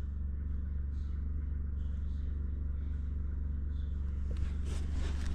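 A steady low machine hum with a faint patchy hiss above it, heard while diesel fuel runs into a heater's tank.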